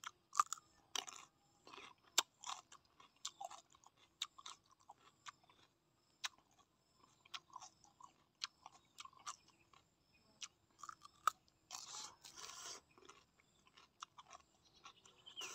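A person chewing food with the mouth open, with irregular wet smacks and crisp crunches.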